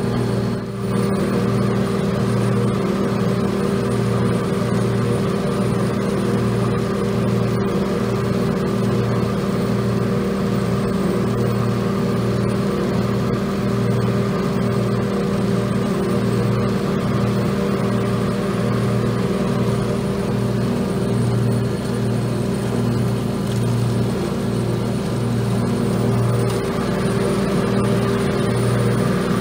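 Lawn mower engine running steadily at working speed, its low hum throbbing about once a second.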